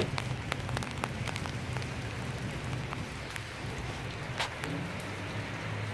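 Steady rain falling on wet pavement and puddles: an even hiss with scattered sharp drop ticks, over a low steady hum.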